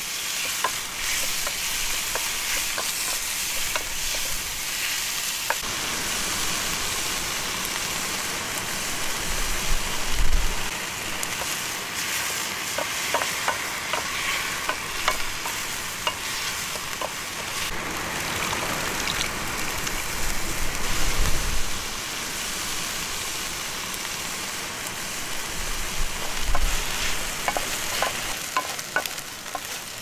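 Chunks of meat sizzling and frying in hot oil in a cast-iron pot, with a steady hiss. A wooden spoon stirs them, giving scattered small scrapes and taps against the pot, and a few dull low bumps come about ten seconds in and again later.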